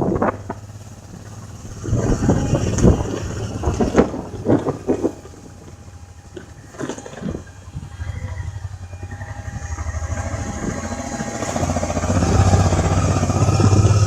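Motor vehicle on the move, its engine running with a steady low hum. A run of sharp knocks and rattles comes a couple of seconds in. The engine grows louder and pulses evenly over the last few seconds.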